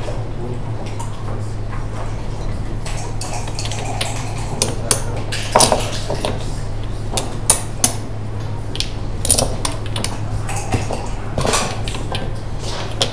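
Backgammon checkers clacking as they are picked up, stacked and set down on the board. The sharp clicks come in quick clusters from about a third of the way in until near the end, over a steady low hum.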